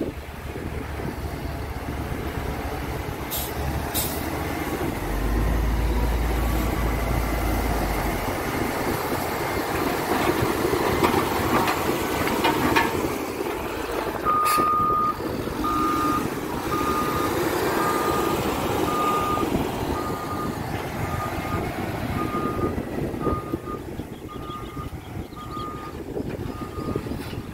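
Caterpillar 120K motor grader's diesel engine running as it works the gravel road. About halfway through, its reverse alarm starts beeping about once a second as the grader backs up.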